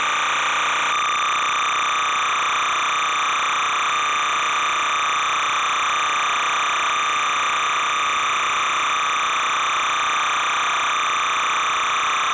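Steady hiss with a constant buzzing tone: noise on an old analog videotape's soundtrack, with no game sound in it.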